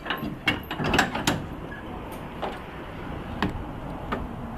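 Metal harness chains of a tram horse clinking and knocking: a quick run of clicks in the first second and a half, then a few single ones.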